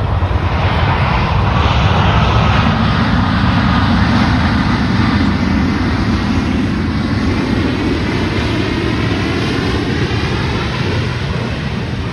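Jet engines of a Boeing 737 passing along the runway: a steady noise that swells over the first two seconds and then slowly eases off. A high whine and sweeping tones in the upper range come and go as it goes by.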